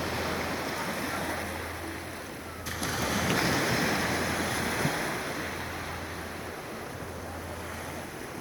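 Sea waves washing, with wind rumbling on the microphone. The surge of water grows suddenly louder a little under three seconds in, then slowly fades.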